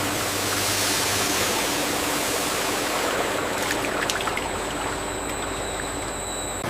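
Steady rushing of flowing water in a processing line.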